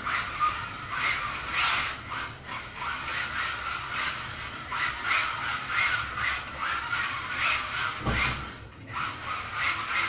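Kyosho Mini-Z AWD RC car drifting on tile floor: its small tyres scrub across the tiles in repeated rasping surges as it slides and accelerates. A brief low thump about eight seconds in.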